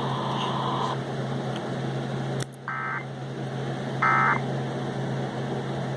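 Emergency Alert System end-of-message data bursts: two short bursts of warbling two-tone digital data, about a second and a half apart, following a click. They signal that the alert broadcast is over. A steady low hum runs underneath.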